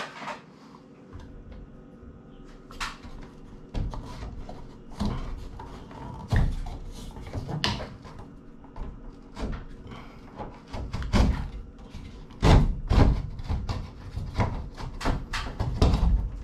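Clicks, knocks and scraping of an old recessed ceiling downlight being worked loose by hand and pulled down out of its ceiling hole, its metal housing knocking against the ceiling board. Dull low thumps come now and then among the clicks.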